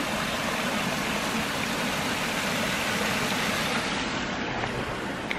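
Small waterfall cascading down over rocks: a steady rush of falling water that turns duller about four seconds in.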